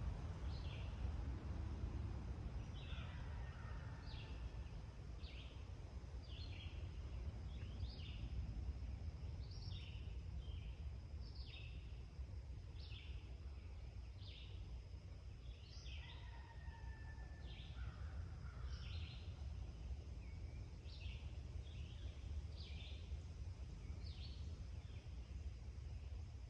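Dawn birdsong: a bird repeating short high chirps about once a second, with a couple of longer whistled notes, over a steady low rumble.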